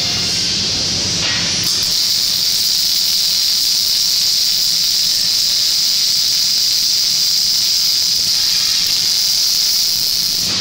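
Arc welding by a 1997 Panasonic welding robot: the arc strikes about a second and a half in and holds as a loud, steady, high hiss, stopping just at the end.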